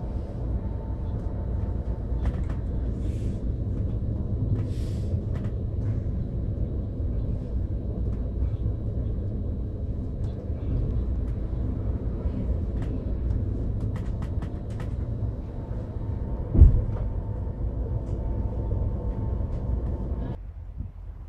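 Steady low rumble of a moving train, with scattered clicks and rattles and a faint steady whine, and one loud thump about three-quarters of the way through. The rumble cuts off abruptly just before the end.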